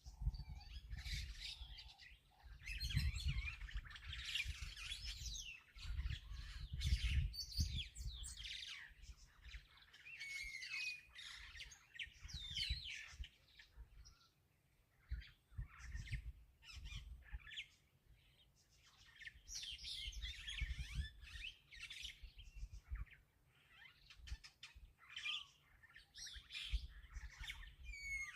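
Several wild birds chirping and calling, with short, quick, sliding notes overlapping in a busy chorus that comes and goes in bouts. A low rumble rises and falls beneath them at times.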